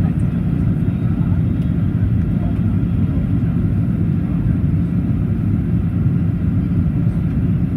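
Steady low drone inside the passenger cabin of a Boeing 737-800, an even rumble with a faint hum running through it.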